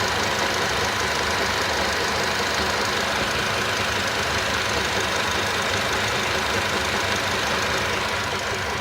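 Nissan Qashqai 1.6 engine idling steadily with a knocking from its tensioner pulley, the sign of a worn tensioner pulley bearing.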